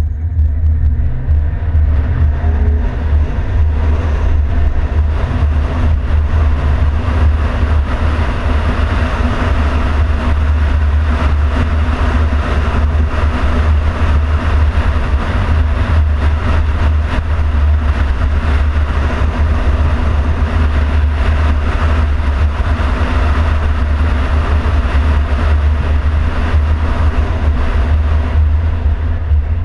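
A car driving along a city street, heard from a camera mounted outside on the hood. Steady engine and road noise runs under a heavy, constant wind rumble on the microphone. The engine rises in pitch in the first few seconds as the car picks up speed.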